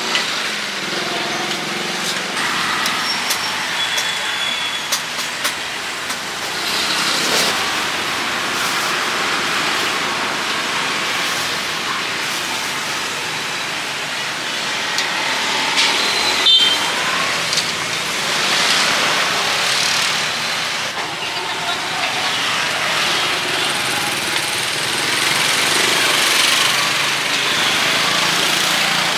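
Street traffic ambience: motorbike and car engines passing in a steady wash of noise, with a sharp click about halfway through.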